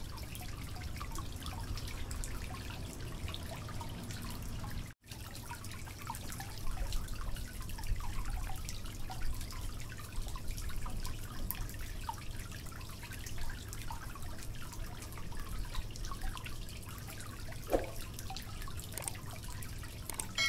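Kitchen knife dicing a tomato on a wooden cutting board: light, irregular taps of the blade on the board over a low hum, with a brief break about five seconds in.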